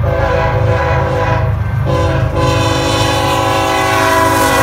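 Freight locomotive's multi-chime air horn sounding one long, loud blast over the low rumble of the train, with some of its lower notes dropping out briefly about two seconds in. Near the end the horn's pitch starts to fall.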